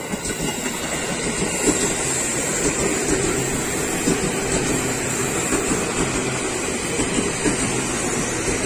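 JR 205 series electric commuter train (KRL) rolling past close by: a steady running noise with many small knocks from the wheels on the rails, building up as the train arrives.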